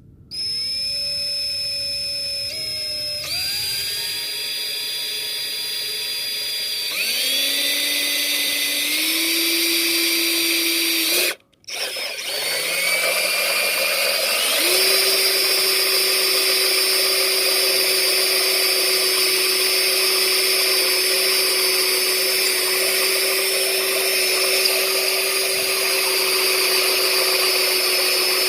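Electric drill running under load, its motor whine stepping up in pitch several times as it speeds up. It stops briefly about eleven seconds in, then starts again, climbs once more and runs steadily at the higher speed.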